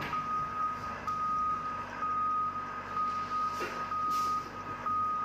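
Heavy vehicle's reversing alarm: one steady high tone repeating with short gaps, over a low engine hum and a few light knocks.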